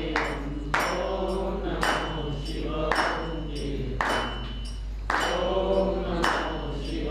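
Group devotional singing with a ringing metal strike about once a second, each strike leaving a thin high ring.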